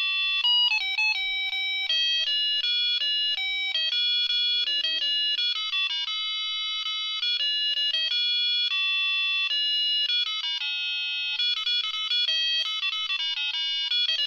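A Vogurtime LED star kit's small piezo speaker playing an electronic beeping tune, note after note in a quick stepped melody that keeps going without pause.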